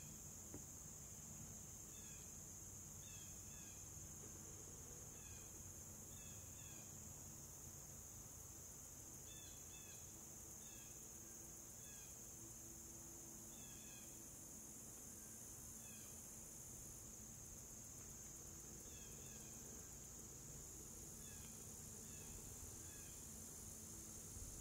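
Faint outdoor ambience of insects: a steady high-pitched drone, with small clusters of short chirps every second or two.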